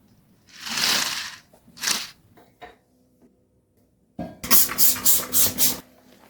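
Household cleaning sounds. Two hissing swishes come first, then a few light clicks. After a short pause there is a knock, then about six quick hissing spurts in a row.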